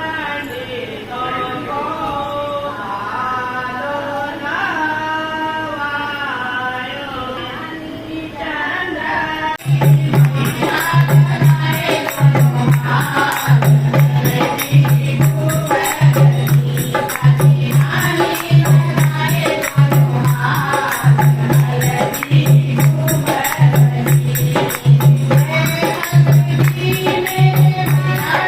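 A melody is sung by voices with no accompaniment. About ten seconds in, a song takes over, with a steady low drum beat about once a second, several singers and jingling percussion.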